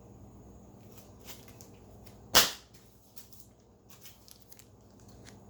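A single sharp slap about two and a half seconds in, with a few faint taps and rustles around it: vinyl LP jackets being handled and set down.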